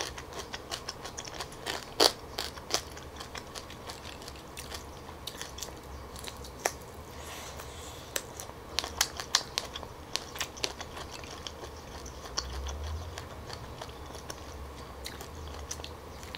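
Close-up eating of steamed tiger prawns with their heads on. The biting and chewing come as scattered sharp crunches, the loudest about two seconds in and a cluster around nine to ten seconds in.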